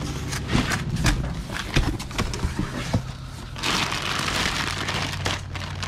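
Cardboard box flaps being handled, with scrapes and knocks, then a clear plastic bag of clothes crinkling loudly as it is grabbed and pulled out, starting about three and a half seconds in.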